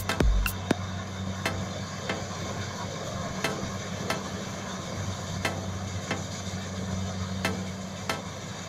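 Background electronic dance music in a breakdown without its kick drum: a steady low synth drone with sharp percussive clicks in pairs about every two seconds.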